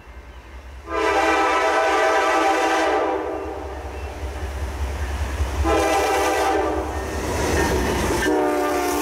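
Horn of a Norfolk Southern GE Dash 9-44CW freight locomotive: a long blast of about two seconds starting a second in, a shorter blast around six seconds, and a third starting near the end. Under the horn is a low rumble that swells as the locomotives pass close.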